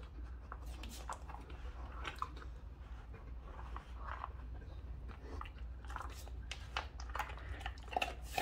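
A dog nudging a treat puzzle toy around, with irregular clicks and knocks of the puzzle and crunching as it chews the treats it gets out.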